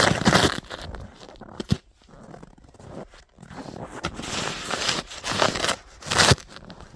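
Snow shovel scraping and crunching through packed snow in uneven strokes, with a sharp knock about two seconds in.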